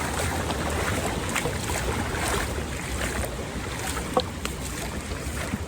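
Creek water rushing steadily over a road ford, where the stream runs across an unpaved road, with a few faint clicks.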